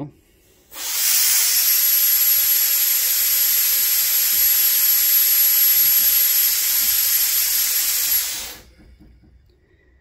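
Compressed air at about 100 psi venting through a 25-foot 3/8-inch air hose with 1/4-inch quick-connect fittings and a flowmeter: a loud, steady rush of air with a thin high whistle over it. It comes on about a second in and tails off after about seven and a half seconds, flowing about 22 CFM.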